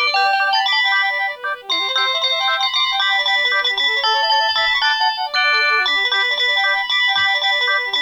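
Panasonic KX-TG8125 cordless phone playing one of its built-in ringtones: a quick electronic melody of short beeping notes, with brief breaks about one and a half and five seconds in.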